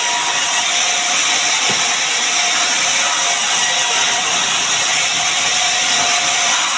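Woodworking power saw running steadily as it cuts sengon timber, a loud even noise with no break.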